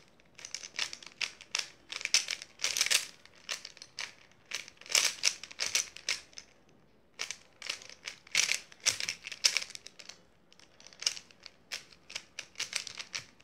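YJ Guanlong v3 plastic speed cube being turned fast by hand: runs of quick clicking and clacking as the layers snap round, broken by short pauses, the longest a little after halfway.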